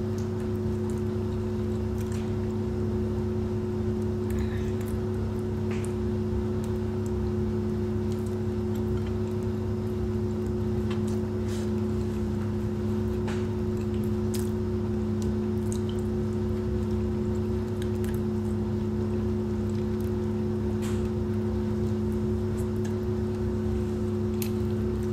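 Steady appliance hum, two steady tones over a low drone, unchanging throughout, with scattered faint clicks and smacks of someone eating rice by hand.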